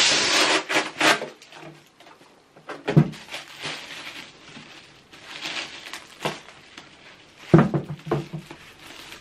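Paper and cardboard packaging being handled and rustled while a box is opened, loudest at the start, with two sharp knocks about three seconds in and near the end.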